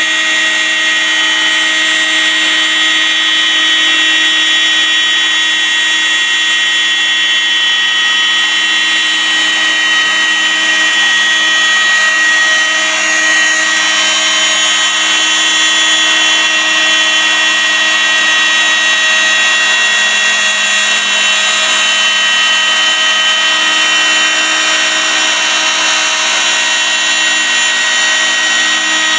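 Spindle of an 8' x 4' rack-and-pinion CNC milling machine cutting a curved slot through a wooden board: a steady, high whine with the cutter's noise underneath, unchanging throughout.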